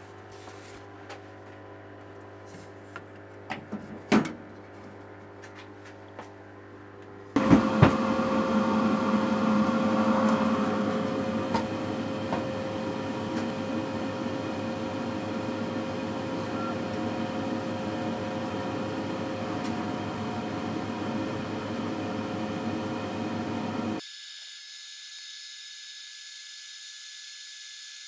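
K40 laser cutter's upgraded exhaust, a 3-inch inline blower, and its air assist running steadily while the laser cuts MDF: a loud airy whoosh with a held hum in it, starting suddenly about seven seconds in after a quieter stretch with a low hum and a few clicks. Near the end the sound changes abruptly to a thin, high, steady whine.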